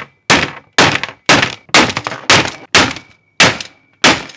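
A mallet repeatedly striking a 3D-printed, Kevlar-reinforced phone case on a wooden tabletop: about eight sharp blows at roughly two a second, each dying away quickly.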